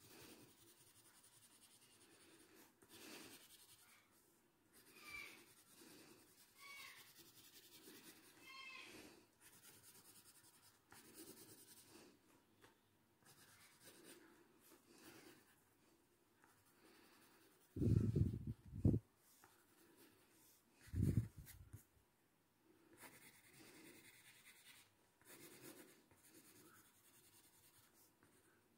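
Graphite pencil scratching on paper in short, repeated hatching strokes, faint throughout. Two louder, low dull bumps come about two-thirds of the way through.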